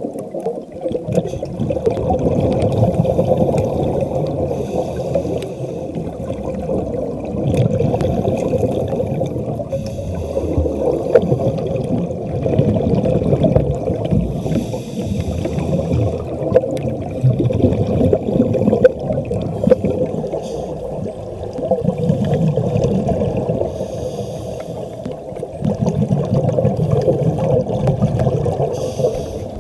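Muffled underwater sound through a camera's waterproof housing: scuba divers' exhaled air bubbling and rumbling, swelling and fading, with a steady hum underneath.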